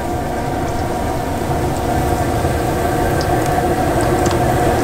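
Floured bay anchovies frying in hot peanut oil in a cast-iron Dutch oven: a steady sizzle and bubbling with scattered small pops, growing a little louder, over the low rumble of the propane burner.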